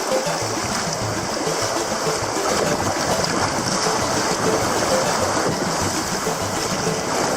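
Steady rush and wash of sea water, with no distinct splashes or strokes standing out.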